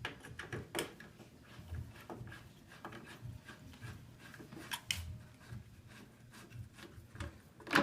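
Irregular clicks and light knocks of an Allen wrench working the seat screws out of an office chair, metal tapping and scraping on metal and plastic, with sharper clicks about a second in, about five seconds in and at the end.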